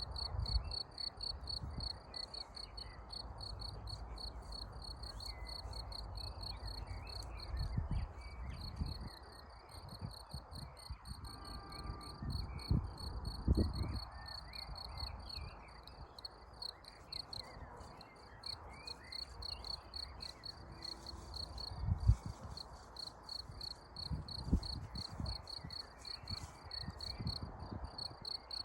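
A cricket chirping steadily in a fast, even run of high pulses. Occasional low thumps and rumbles sit underneath, the sharpest about three quarters of the way through.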